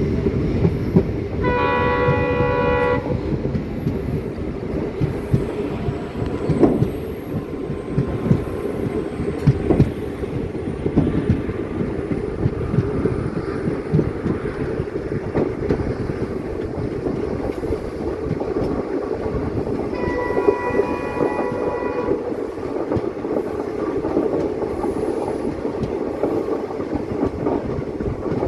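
Passenger train running, heard from on board: a steady rumble and clatter of wheels on the rails. A multi-tone train horn sounds twice, for about a second and a half near the start and for about two seconds some twenty seconds in.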